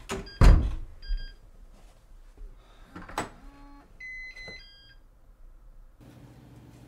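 A front door shuts with a heavy thud about half a second in, followed by short electronic beeps from its digital door lock. Another knock comes about three seconds in, then a further run of electronic beeps and chime tones from the lock.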